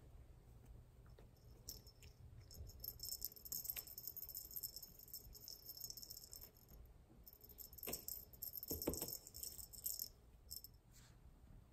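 Faint jingling and rattling of a cat toy as a kitten bats, bites and tugs at it, coming in spells, with a couple of soft knocks about eight to nine seconds in.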